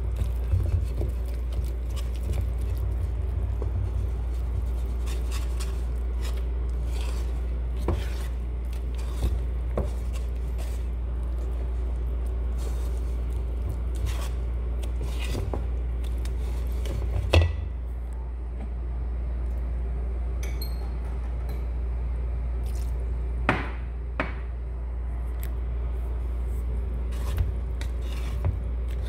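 Wire whisk stirring thick pancake batter in a bowl, with irregular clicks and scrapes of the wires against the bowl over a steady low hum. One sharper knock about 17 seconds in.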